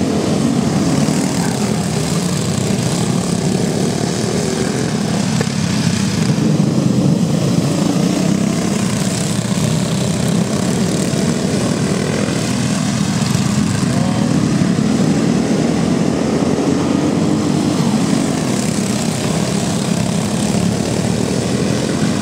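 Several Briggs & Stratton Raptor single-cylinder go-kart engines racing together on a dirt track, a steady, loud engine drone.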